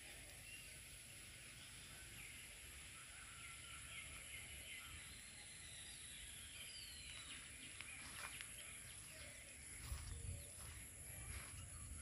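Faint outdoor ambience with small birds chirping in short calls and quick pitch slides, over a steady high hiss; a few soft thumps and ticks come near the end.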